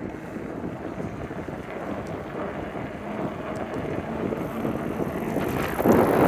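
Wind buffeting the microphone of a camera carried on a moving bicycle: a steady rough rushing that grows slowly louder, with a stronger gust near the end.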